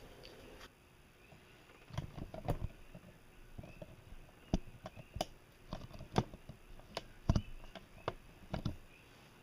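About a dozen light, irregularly spaced knocks and clicks, as of kitchen items being handled and set down.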